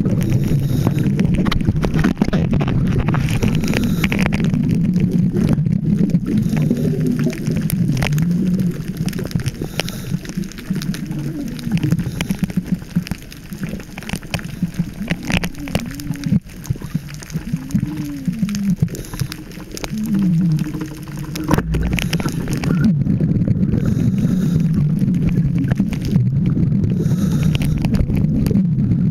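Scuba diver's breathing heard underwater through a camera housing: long stretches of low rumbling exhaust bubbles from the regulator, thinner in the middle where a few short low rising-and-falling tones come through, and one sharp knock about two-thirds of the way through.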